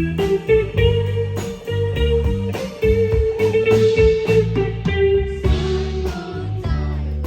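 Band music with electric guitar playing long held notes over a bass line and a steady drum beat, in a bluesy style.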